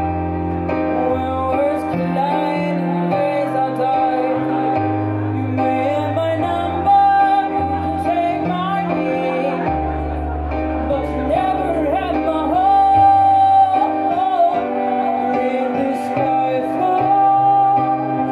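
Live band music: a woman singing a wavering melody over keyboard accompaniment, with long low bass notes changing every second or two.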